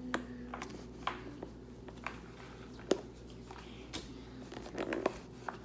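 Faint handling noise: a scatter of small, sharp clicks and taps, with a brief rustle about five seconds in, over a low steady hum.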